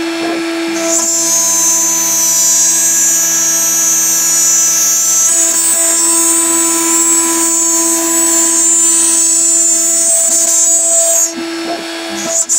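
A DIY CNC router spindle runs with a steady whine while a small end mill cuts slots in a high-pressure laminate sheet, adding a high cutting hiss. The hiss drops out briefly about a second in and again near the end, while the spindle whine carries on.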